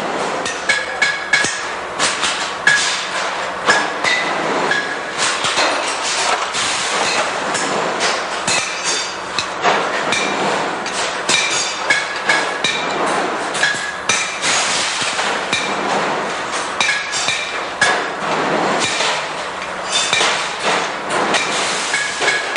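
Hammer striking steel pliers again and again, several metal-on-metal blows a second, many leaving a brief ringing tone. This is plier joints being loosened or tightened to set their tension. Steady factory machinery noise runs underneath.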